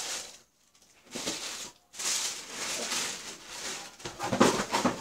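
Rustling and handling noise as things are moved about close to the microphone, with a louder burst of rustling and knocks about four seconds in.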